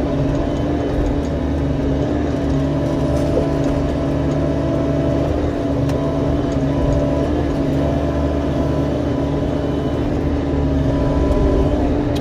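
Diesel engine of a compact construction machine running steadily, with a constant low rumble and a steady pitched hum that holds one pitch throughout.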